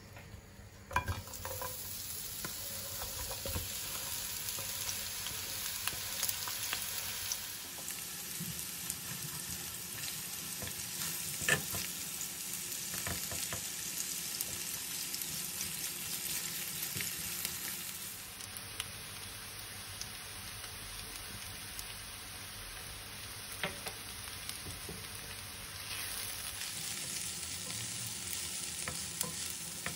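Sliced onions tipped off a wooden board into hot oil in a frying pan, landing with a sharp hit about a second in and then sizzling steadily while being stirred with a spatula, which clicks against the pan now and then.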